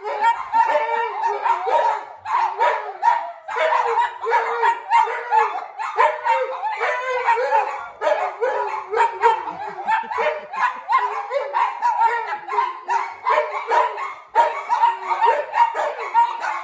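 Several small dogs howling together in a ragged chorus, their overlapping voices rising and falling, with yips and barks mixed in. The chorus breaks off briefly a few times and starts again.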